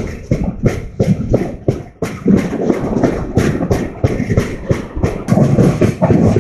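Indian Railways passenger train's wheels clattering over rail joints and points, a run of sharp knocks about three a second over the rumble of the running coach, dipping briefly about two seconds in.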